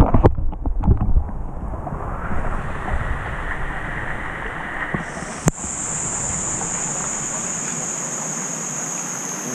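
Water splashing close around the camera at first, then a steady rush of falling water from small rock waterfalls pouring into the pool, with one sharp click about halfway through.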